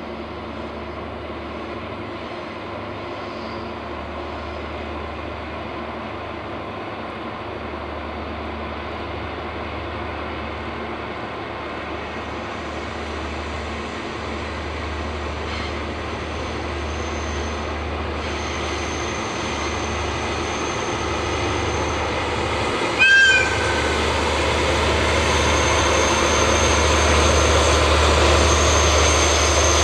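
A diesel train's engine running and growing steadily louder as the train approaches. About 23 s in comes a short, high-pitched toot, the loudest moment, most likely the train's horn.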